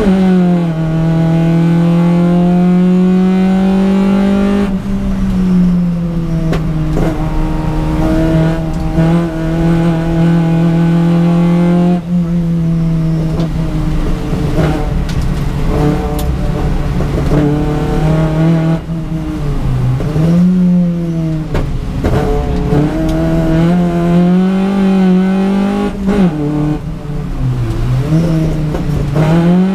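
Rally car engine heard from inside the cabin at stage speed. The revs are held high for long stretches and dip and pick up again several times, with a deeper drop in revs shortly before the end.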